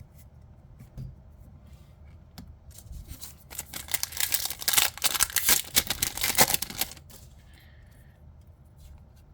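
A trading-card booster pack wrapper being crinkled and torn open, a dense crackling rustle lasting a few seconds in the middle, with lighter handling of cards and wrapper before and after.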